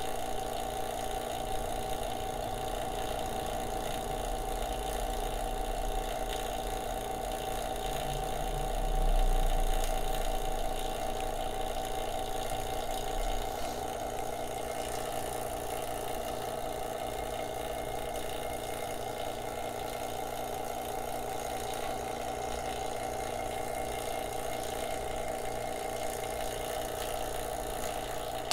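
Electric A/C vacuum pump running steadily with an even motor hum, evacuating air and contaminants from the refrigerant hoses. It swells briefly about nine seconds in.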